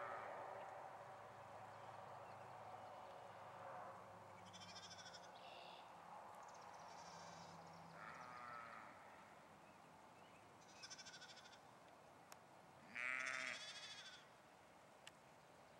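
Sheep and lambs bleating now and then: about six separate calls, some high and thin, some lower, the loudest about two seconds before the end, over an otherwise quiet background.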